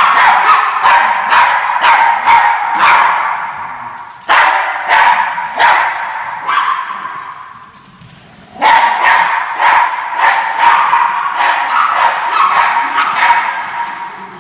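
Norfolk terriers barking and yipping rapidly in three long bouts, with short lulls at about four seconds and again around eight seconds.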